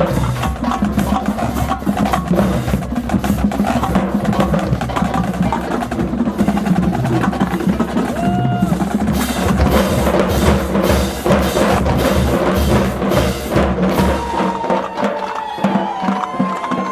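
Marching band drumline playing a fast cadence, with rapid snare drum rolls and booming bass drums. About 14 s in, the bass drums drop out.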